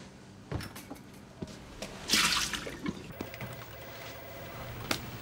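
A short rush of running water from a kitchen sink tap about two seconds in, with a few light clinks of a spoon against a ceramic coffee mug.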